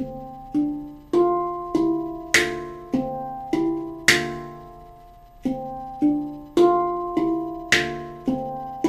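Handpan played slowly in an eight-count pattern of thumb and index-finger strikes on the tone fields, about two strikes a second with the ringing notes overlapping. The fifth and eighth strikes of each round are flat-finger slaps near the rim, sharper and more percussive than the rest. The pattern runs through about twice.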